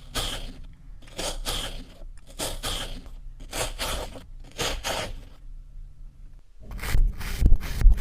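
Kinetic sand being sliced, a gritty scraping hiss at each cut, five cuts about a second apart. Near the end faster, louder crunching strokes with dull low thuds follow.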